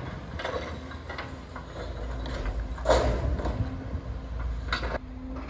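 Demolition work: scattered knocks and crunches of breaking debris, the loudest about three seconds in, over a steady low engine rumble from the demolition machinery.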